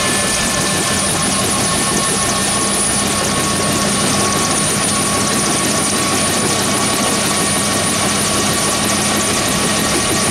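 Bell UH-1H Huey helicopter running loud and steady: the rotor's heavy wash of noise with the high, constant whine of its Lycoming T53 turboshaft engine over it.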